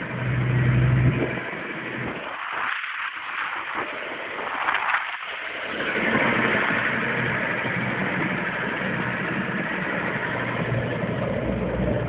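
Skid-steer loader engine running as the machine drives and turns on gravel. A steady low hum in the first second gives way to a steady rushing noise from about halfway through.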